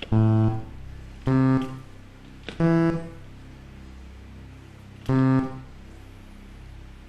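Game-show buttons sounding short electronic keyboard notes as a note sequence is played back, four notes of different pitches with uneven pauses and the last after a longer gap. A steady music bed plays quietly underneath.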